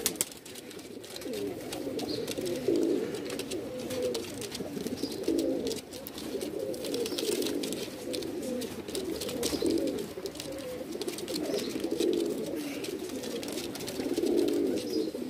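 Domestic pigeons cooing in a loft, several birds' low cooing overlapping without a break.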